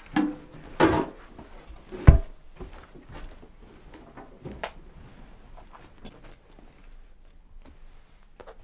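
A heavy thump about two seconds in, after two shorter knocks or handling sounds, followed by scattered light clicks and knocks.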